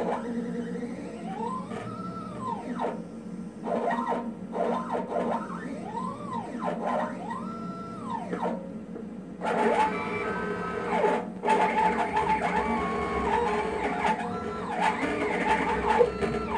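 Stepper motors of a GRBL-controlled desktop CNC router jogging its axes: a whine that rises and falls in pitch as each move speeds up and slows down. It comes as separate sweeps at first, then runs denser and more continuously from about halfway on, over a steady low hum. The jogging is still a bit choppy.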